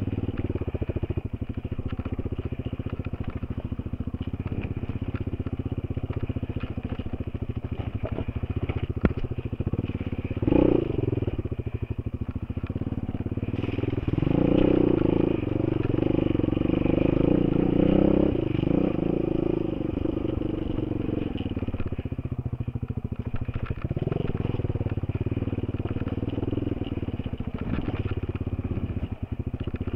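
Enduro motorcycle's single-cylinder engine running under changing throttle, heard from a helmet-mounted camera. There is a short burst of throttle about ten seconds in and a longer, louder pull from about fourteen to nineteen seconds in.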